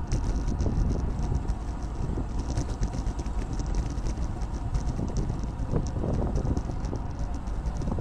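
Wind buffeting a bike-mounted microphone and tyres rolling on rough asphalt as a bicycle coasts at about 19 mph, a steady low rush. A faint rapid ticking runs high above it.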